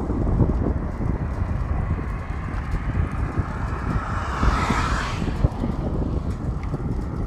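Wind rumbling on the microphone of a moving bicycle over coarse asphalt. About halfway through, a car passes, swelling and then fading.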